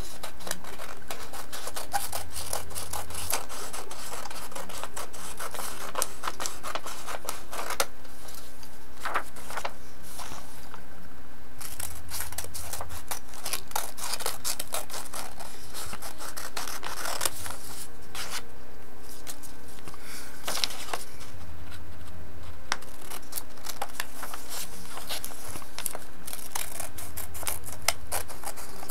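Scissors cutting paper: a run of crisp snips with the sheet rustling and sliding against the blades, pausing briefly now and then as the paper is turned.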